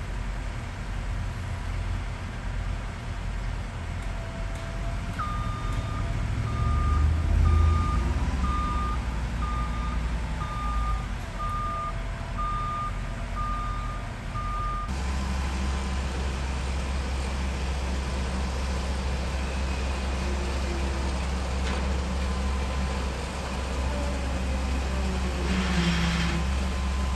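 A vehicle's back-up alarm beeping at a steady high pitch about once a second over a low engine rumble, about ten beeps, stopping abruptly; a steady low engine rumble continues after it.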